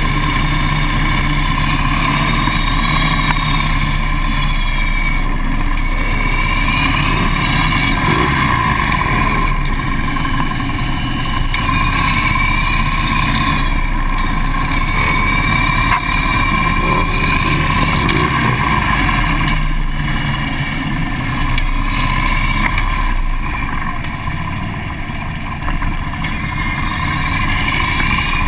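Onboard sound of a Harley-Davidson police motorcycle's V-twin engine running at low, steady speed, its pitch rising and falling gently with the throttle through tight turns. The engine is heard from a camera mounted on the bike behind the windshield.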